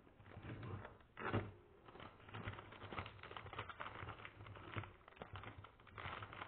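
Irregular crackling, rustling and tapping of something being handled, with many short uneven clicks and no steady rhythm.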